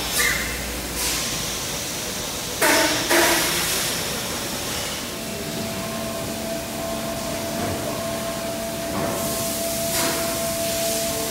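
Tire-plant machinery: several short, loud hissing blasts in the first three seconds over a steady factory noise, then a steady hum with a constant tone from about five seconds in.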